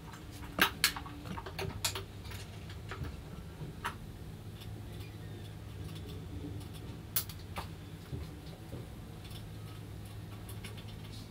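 Sharp metal clicks and taps from a part being clamped in a steel bench vise, then scattered light ticks as a small brass fitting is screwed in by hand, over a steady low hum.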